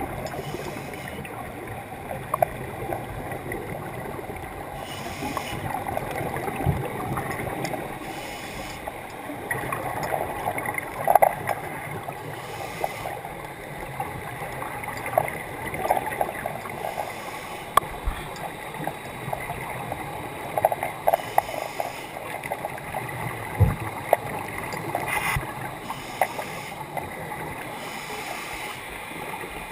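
Underwater sound of scuba divers breathing through regulators, with exhaled bubbles gurgling in bursts every few seconds, plus scattered small clicks and knocks.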